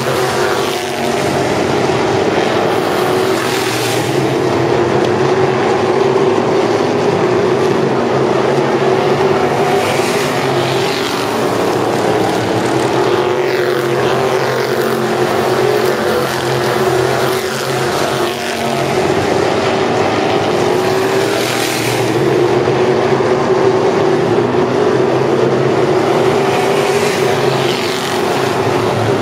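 A pack of asphalt modified race cars running at racing speed on a short oval, their V8 engines blending into one continuous drone. Several times single cars pass close, each swelling louder with its engine note sliding in pitch.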